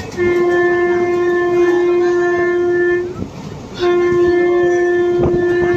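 Train locomotive horn sounding two long blasts on one steady pitch, each about three seconds, a little under a second apart.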